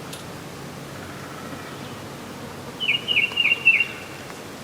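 A songbird sings a short phrase of four or five quick, high, down-slurred notes about three seconds in, over a steady outdoor background hiss.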